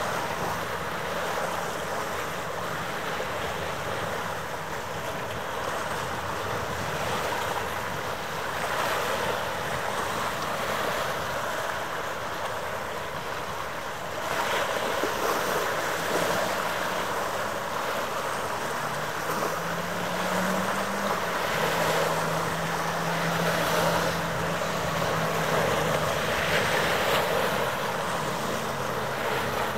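Wind buffeting the microphone over a steady wash of harbour water, with a low steady engine hum coming in about two-thirds of the way through.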